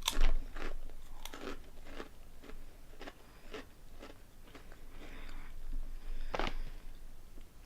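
Close-up crunching of crisp, airy Korean honey snack chips being bitten and chewed. There is a sharp bite right at the start, then a run of smaller crackling crunches, and another loud crunch about six and a half seconds in.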